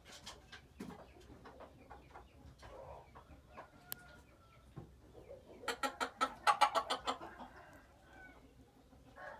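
Red junglefowl clucking: scattered soft clucks and clicks, then a fast run of loud clucks lasting about a second and a half a little past halfway.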